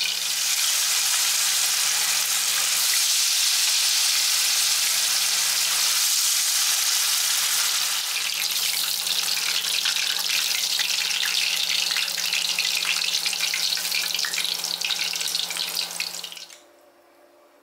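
Chicken pieces deep-frying in vegetable oil in a wok: a dense, steady sizzle and crackle of bubbling oil over a low steady hum. It cuts off suddenly near the end.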